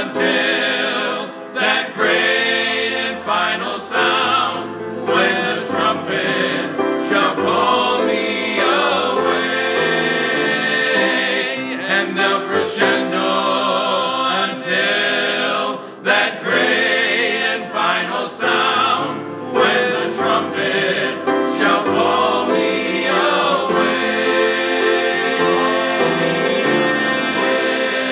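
Gospel song sung by several voices in harmony, with long low notes underneath.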